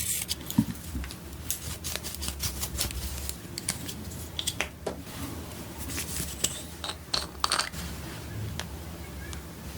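Irregular light clicks and scrapes of small tools and plastic makeup containers being handled close up.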